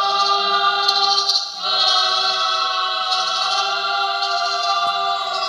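Choral music: voices singing long held chords, with a brief dip and a change of chord about one and a half seconds in.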